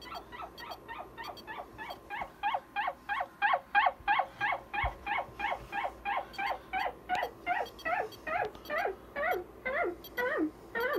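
A sped-up synthetic 'hello' voice sample, looped as AM modulation by a Siglent SDG1032X signal generator and played back through a Kenwood TS-890 receiver's speaker, comes out as rapid, high-pitched, yapping-dog chirps. The chirps slow down and drop in pitch toward the end as the modulation rate is turned down.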